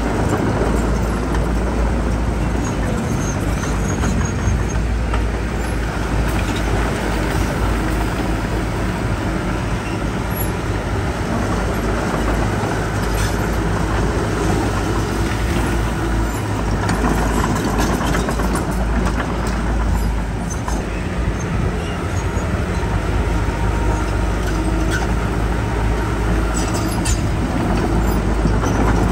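Heavy diesel earthmoving machinery, a bulldozer and dump trucks, running steadily as they work.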